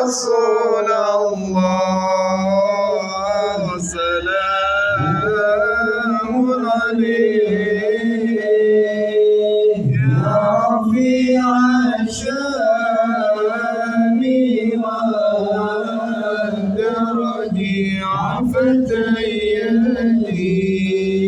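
Male voice chanting a sholawat, an Arabic devotional song in praise of the Prophet Muhammad, in long drawn-out notes that wind slowly up and down.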